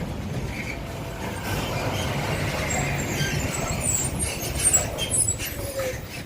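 Truck sounds: a dense, steady engine-and-road rumble with some hissing, cut off abruptly at the end.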